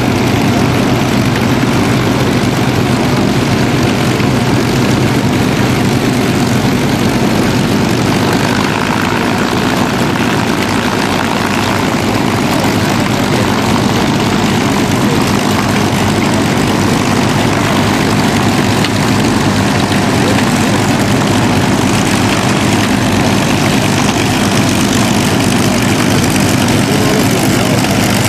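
World War II fighters' V-12 piston engines (a P-38 Lightning, a P-40 Warhawk and P-51 Mustangs) running at low, steady power on the ground, propellers turning. The engine note stays loud and even throughout.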